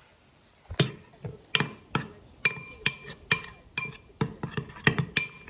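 Metal spoon clinking against the side of a glass bowl while stirring a thick soap paste: a quick, irregular run of sharp ringing clinks, about two or three a second, starting about a second in.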